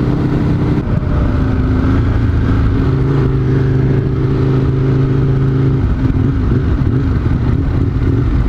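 Motorcycle engine running at steady cruising speed under the rider, with wind rumble on the helmet-mounted microphone. The engine note changes about a second in and again near six seconds as the throttle or gear changes.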